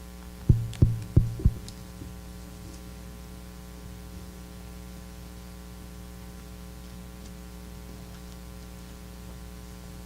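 Steady electrical mains hum from the sound system, with four quick knocks in a row about half a second in.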